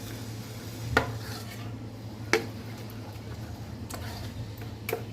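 Flour batter being stirred in a bowl, with a few sharp taps of the utensil against the bowl. A steady low hum runs underneath.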